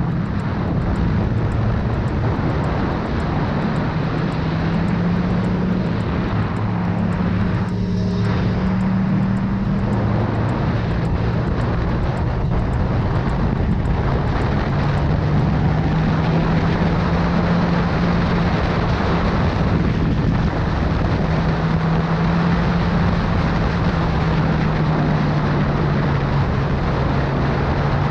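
Sport motorcycle engine running steadily at cruising speed, with heavy wind rush over the microphone; the engine note settles slightly lower in pitch about ten seconds in and holds there.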